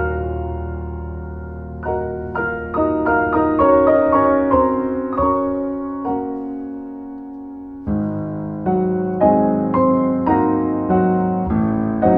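Solo piano music: low chords held under a run of single notes, with a fresh low chord struck about eight seconds in.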